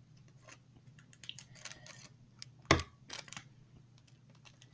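Small plastic clicks and taps from handling toy figurines and their packaging, with one sharper, louder click a little past the middle.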